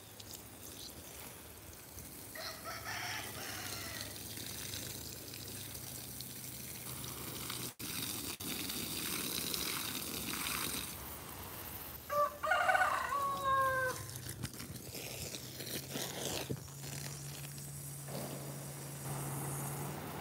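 Garden hose spraying water onto soil and plants, a steady hiss. A rooster crows loudly, a multi-part crow about twelve seconds in, after a shorter falling call near the start.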